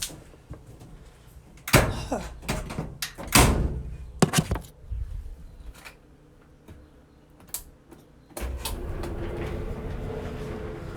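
A door being opened and closed, with several loud clunks and bangs, then a steady hum that begins near the end.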